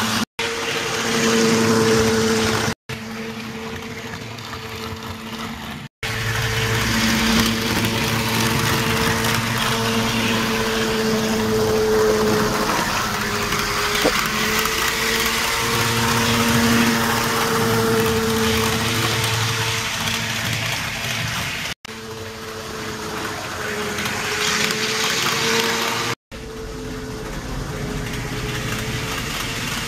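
Bachmann Class 170 model train's DCC-fitted electric motor running steadily, with a whine that wavers slightly in pitch over wheel noise on the track. The sound breaks off for an instant five times.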